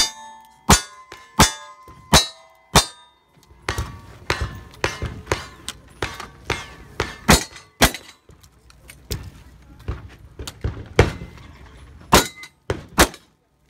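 Rapid gunfire from a cowboy action shooter, first a revolver firing five evenly spaced shots about 0.7 s apart, then further strings ending with shotgun blasts near the end. Steel targets clang and ring briefly after hits.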